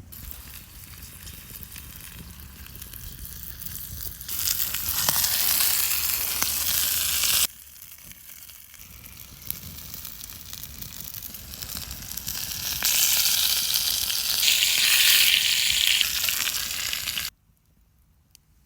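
Bone-in chicken sizzling as it cooks over a campfire, a steady hissing fry. It swells louder twice and each time cuts off suddenly, the second time leaving only faint sound near the end.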